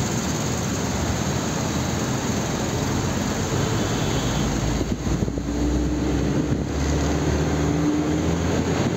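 Truck engine running and road noise heard from inside the cab while driving, with a whine rising slightly between about five and eight seconds in.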